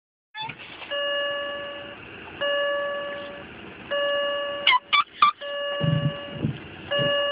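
A car's door-open warning chime dings about every one and a half seconds, each ding a steady tone that fades away. Around the middle, a white miniature schnauzer gives three short yelps in quick succession.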